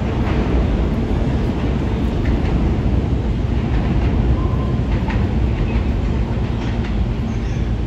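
New York City subway train running loudly on the tracks: a dense, steady rumble with scattered faint clicks.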